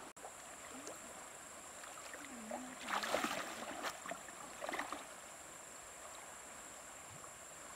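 River water sloshing and swishing around a person's legs as she wades thigh-deep, with a louder burst of splashing about three seconds in and a smaller one near five seconds.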